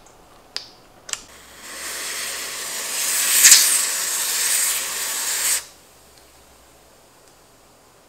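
Aerosol freeze spray hissing steadily through its extension straw for about four seconds, then cutting off abruptly. Two short clicks come just before it.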